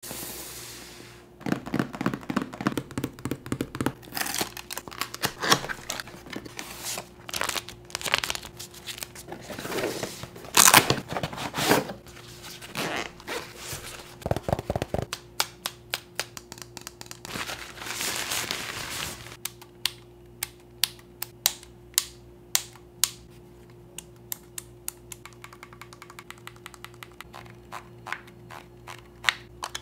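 Unboxing a Sony FE 50mm f/1.4 GM lens: the packaging and the lens's soft pouch are handled, and its paper wrapping rustles, crinkles and tears. About two-thirds of the way through this gives way to a run of sharp separate clicks and light knocks as the bare lens is handled.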